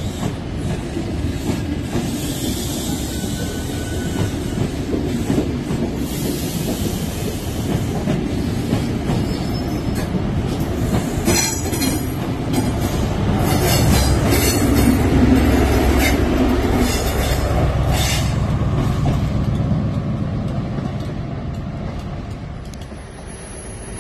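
CrossCountry HST (InterCity 125) running past at the platform, its Mark 3 coaches rumbling with wheel clicks and squeals over the rails. The rear Class 43 power car's diesel engine passes loudest about two-thirds of the way in, and the sound fades as the train draws away near the end.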